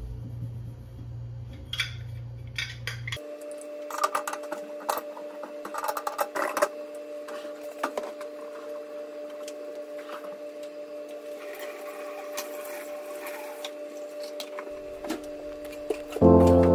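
Metal burner caps of a stainless steel gas hob clinking and tapping as they are handled and set back in place, with cloth wiping, over a steady hum.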